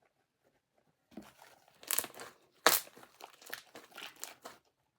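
Hands stretching and squishing homemade fluffy slime, giving irregular crackles and pops that start about a second in, two of them louder near the middle.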